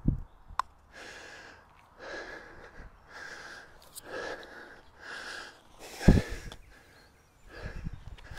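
A man panting heavily, out of breath from speed golf, with a breath roughly once a second. Low thumps come at the very start and about six seconds in.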